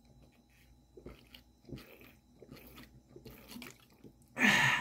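A person drinking water from a plastic bottle: a few soft swallowing gulps, then a short, loud breath out about four seconds in.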